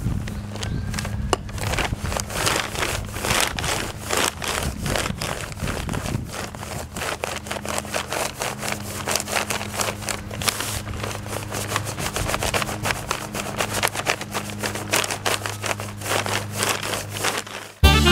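Glass bottle rubbed hard back and forth along a crepe myrtle bow stave, a rapid, continuous run of rubbing and scraping strokes over a steady low hum. It is burnishing the wood, pressing the surface fibres down before the final tillering.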